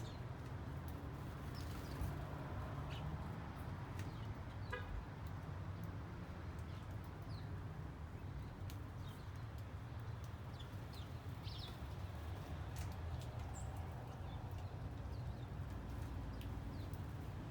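Backyard ambience of small birds giving scattered short, high chirps, with a quick chattering run about five seconds in, over a steady low background rumble.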